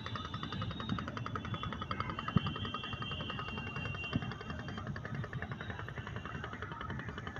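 An engine running steadily with a fast, even pulse, plus a sharp tick about two and a half seconds in and a fainter one about four seconds in.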